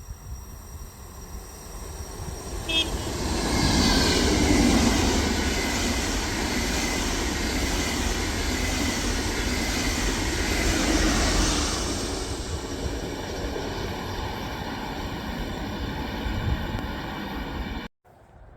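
A train passing at speed: a rush of wheels and air swells about three seconds in, stays loud for several seconds and then eases off. A train horn sounds as it nears, and the sound cuts off suddenly near the end.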